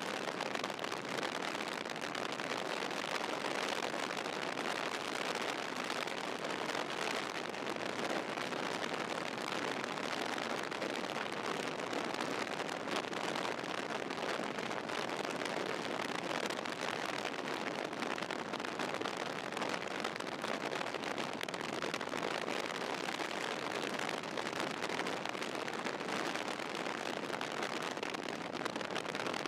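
Steady rushing road and wind noise of a car in motion, even and unbroken, with no thunder claps.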